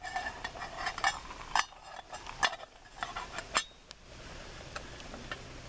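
Sharp metal clinks and scrapes from a metal camp cook kit as a lid is set partly in place, stopping a little under four seconds in.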